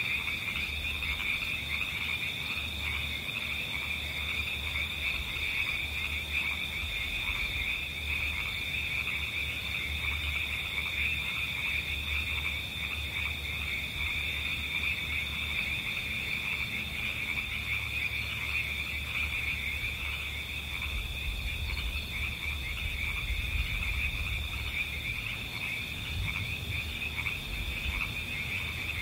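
Steady chorus of frogs and insects, with continuous shrill trilling and fainter repeated croaks underneath.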